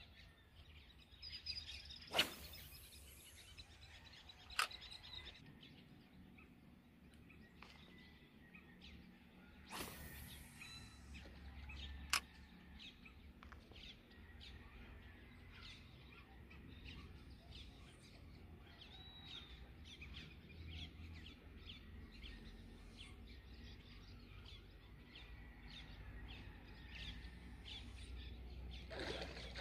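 Birds chirping with many short, faint calls over a low outdoor rumble, broken by a few sharp clicks and a swish, the loudest about two seconds in and at about ten and twelve seconds in.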